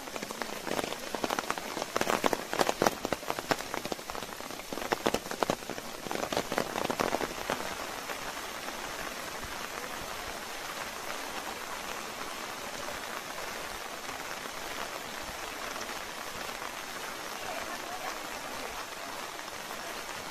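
Heavy rain: a close, uneven patter of drops for about the first eight seconds, then a steady hiss.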